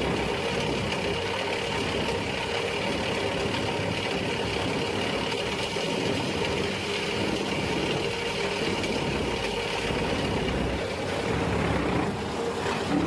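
A heavy machine's engine running steadily, with a steady whine above the low drone.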